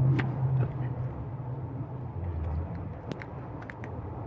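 Small sharp clicks and scrapes of a tool prying and cutting at the thin metal RF shield cap on a smart plug's Wi-Fi module, with a few clicks near the start and a cluster about three seconds in, over a steady low hum.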